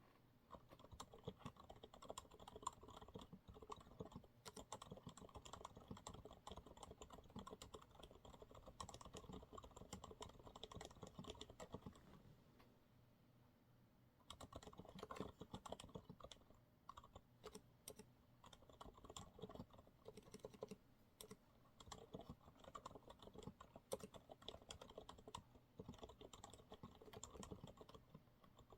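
Faint, continuous typing on a Monsgeek MG108W full-size keyboard with TTC silent brown switches: soft, dampened keystrokes at an irregular pace, with a pause of about two seconds near the middle.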